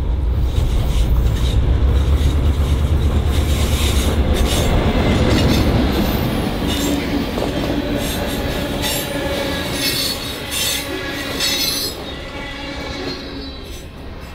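Two GP38-2 diesel locomotives, EMD V16 two-strokes, running past with a heavy low engine sound. Tank cars and covered hoppers follow, rolling by on the curve with high wheel squeal and wheel clatter through the middle. The sound falls away near the end as the last car passes.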